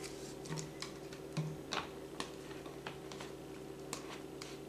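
Faint, irregular plastic clicks and ticks as an empty plastic soda bottle is screwed onto a tornado-tube connector and handled.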